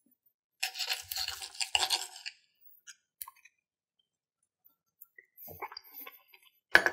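Knife and fork cutting a bite of stuffed chicken breast on a plate: a scratchy back-and-forth scraping lasting under two seconds, followed by a few faint clicks of cutlery.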